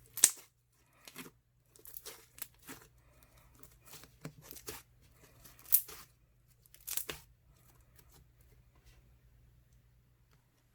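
Crunchy clear-glue slime squeezed and stretched by hand: a string of sharp crackles and air-bubble pops, loudest about a quarter second in and again near the middle, trailing off to faint rustling after about eight seconds.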